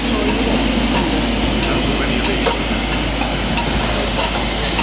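A Black 5 steam locomotive turning on a railway turntable: a steady hiss with faint, evenly spaced clicks a little under twice a second as the table rotates.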